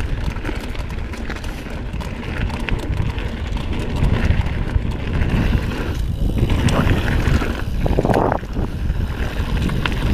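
Mountain bike rolling fast down a dirt trail: wind buffets the camera microphone over the rumble of tyres on dirt, with scattered clicks and rattles from the bike.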